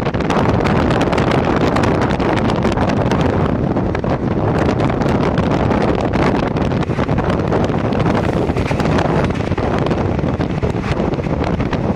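Wind buffeting the microphone at the open door of a moving train, over the train's steady running noise. In the second half a passenger train on the next track passes close by in the opposite direction.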